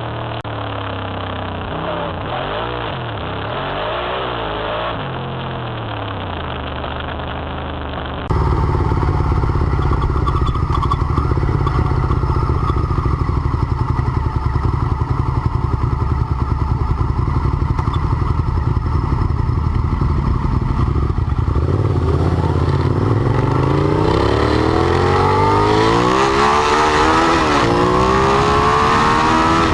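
Motorcycle engine running under way, its revs wavering up and down; about eight seconds in a cut brings a louder, steadier engine sound, and in the last third the revs climb as the bike accelerates, dip once and climb again.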